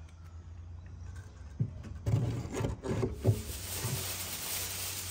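A few dull knocks, then aluminium foil crinkling as a sheet is pulled off the roll.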